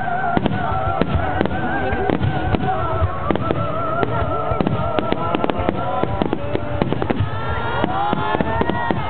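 Fireworks barrage at close range: a dense, rapid run of sharp bangs and crackling bursts. Near the end several whistling shells climb in pitch.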